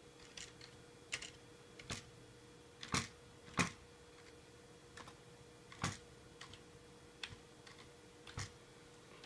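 Dell USB keyboard being typed on slowly: about a dozen separate key clicks at an uneven pace, with pauses of up to a second between them.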